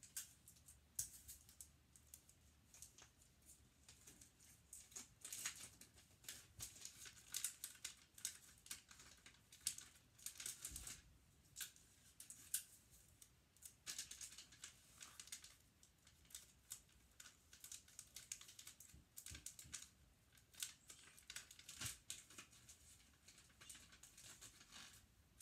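Quiet gift-wrapping noises: wrapping paper crinkling and rustling as it is folded, with irregular sharp clicks and rips of clear tape pulled and torn off a desk tape dispenser.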